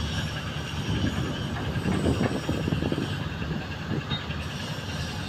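Fishing boat's inboard diesel engine running steadily under way, a low, dense pulsing sound.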